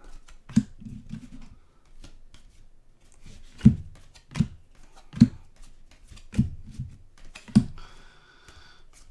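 Trading cards being handled at a table: a series of about six sharp taps and clicks, a second or so apart, with light rustling of card stock between them.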